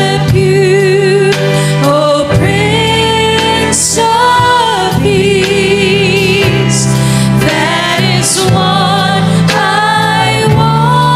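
Gospel praise song: voices singing long held notes with vibrato over a steady bass accompaniment.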